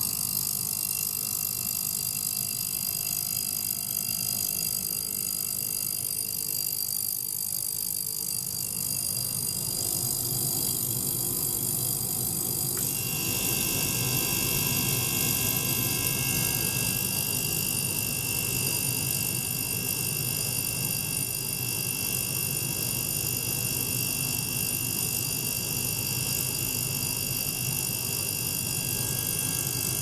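Ultrasonic cleaner running with water in its tank: a steady high-pitched whine and hiss over a low hum. About thirteen seconds in the sound shifts, as a new steady tone and more midrange noise come in.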